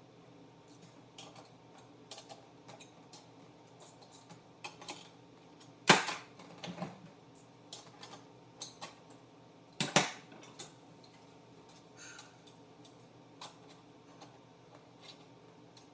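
Scattered metal clicks and clanks of a skid-steer seat and its steel mounting brackets and bolts being handled and fitted, with two louder clanks about six and ten seconds in.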